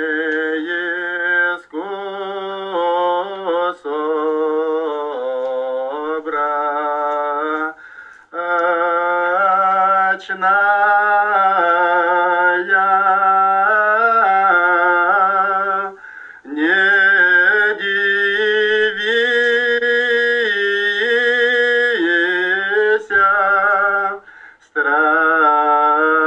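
Voices singing unaccompanied chant in unison, on long held notes that step up and down in pitch, phrase by phrase with short breaks between.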